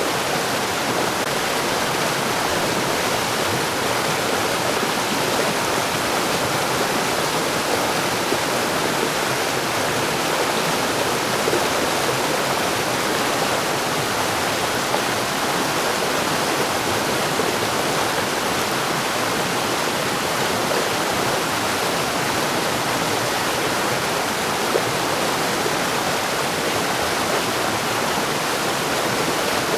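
Mountain stream rushing steadily over rocks, a constant even splashing flow.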